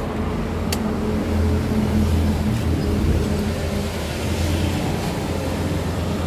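Steady low machine hum, like an engine running, with one sharp click less than a second in.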